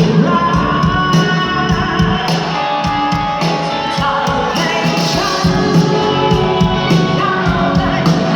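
Loud live stage music: a singer over a band with a steady drum beat.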